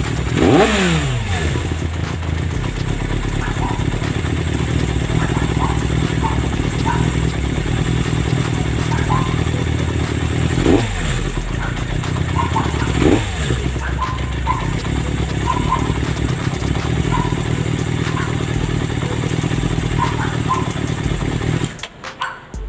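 Suzuki Bandit 400's inline-four engine idling warm, with three quick throttle blips that fall back to idle: one about half a second in and two more around eleven and thirteen seconds in. The engine stops just before the end.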